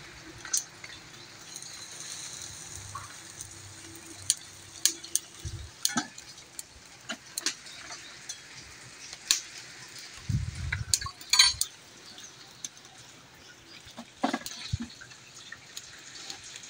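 Clay pots, a clay lid and utensils clinking and knocking in scattered sharp clicks, with a louder clatter and thump about eleven seconds in, over a faint steady hiss.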